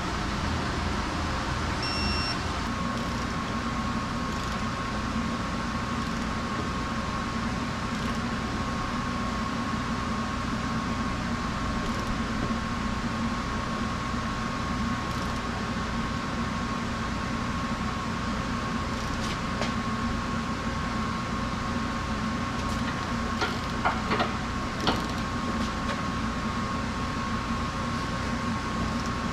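Steady mechanical hum with a faint held whine, and a few light clicks or taps near the end.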